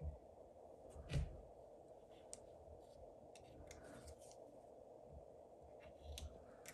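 Faint cuts of a carving knife paring a wooden lure body: a few soft clicks and scrapes, the loudest about a second in, over a steady low background hum.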